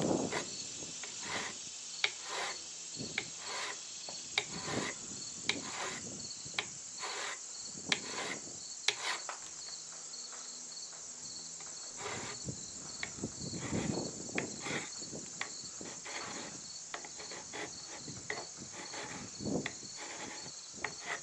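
Hand file rasping across the top of a flintlock rifle's front sight in short strokes, about one or two a second, filing it down to bring the point of impact up. Crickets chirp steadily behind.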